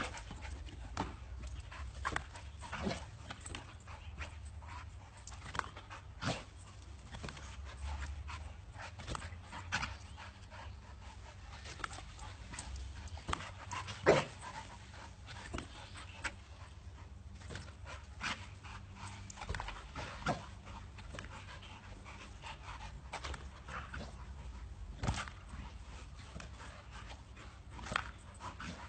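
A dog panting, with scattered short clicks and knocks throughout and one louder knock about fourteen seconds in.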